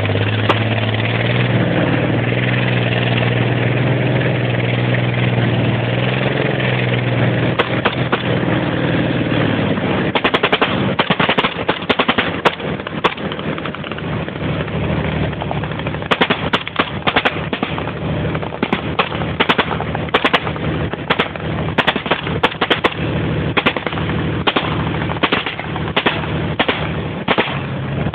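Military vehicle's engine running steadily as it drives across open ground; from about ten seconds in, rapid bursts of automatic gunfire crack out over the engine again and again.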